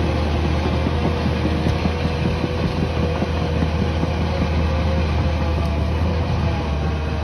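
Cat D5 bulldozer's diesel engine running steadily, with a constant low drone.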